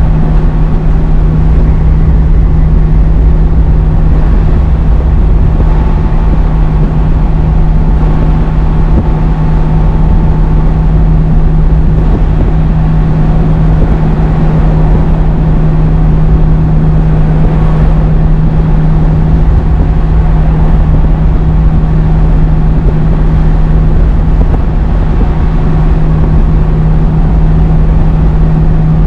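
Scania G500 truck's diesel engine running at steady revs in seventh gear, holding back a 56-tonne truck and dog on a steep descent without the foot brakes, over a steady low rumble of road and tyre noise. It carries a constant low hum.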